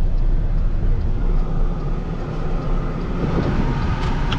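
Steady low rumble and rushing noise of a road vehicle on the move, engine, tyres and wind on the microphone together.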